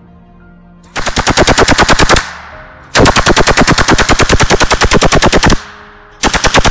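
Heavy machine gun firing in three bursts of rapid shots, about ten a second. A short burst comes about a second in, a longer one of about two and a half seconds follows, and another starts near the end.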